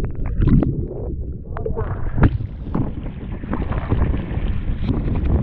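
River water heard through a camera held underwater: a muffled low rumble with gurgles. About two seconds in, the camera comes out of the water and the sound opens into stream water splashing and rushing, with wind on the microphone.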